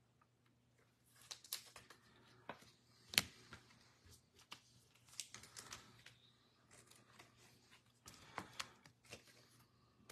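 Trading cards and plastic card holders being handled: faint, irregular rustles and clicks, with one sharper click about three seconds in.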